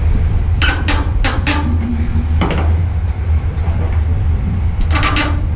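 Adjustable spanner working on an SWA cable gland on a steel container wall: short metallic clicks and scrapes in a few clusters, over a steady low engine hum.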